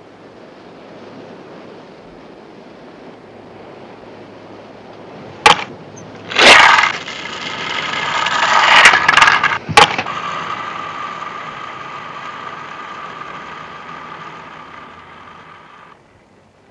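Skateboards rolling on asphalt: a few sharp clacks of boards hitting the pavement partway through, with the rolling getting louder. It then settles into a steady rolling whine that fades and cuts off near the end.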